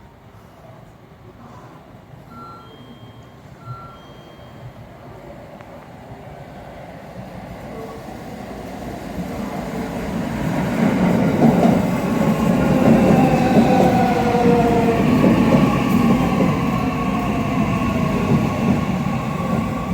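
A 315 series electric train coming near, its running noise growing steadily louder from about a third of the way in to a loud, steady rumble. Several whining tones from its motors ride over the rumble.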